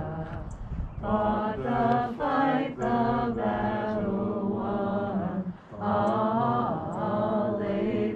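Voices singing a slow hymn without accompaniment, in long held notes, with a short break between phrases about two-thirds of the way through.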